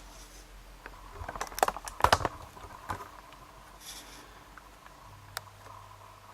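Light clicks and taps of small objects being handled, a cluster of them about one and a half to two and a half seconds in and a single faint click later.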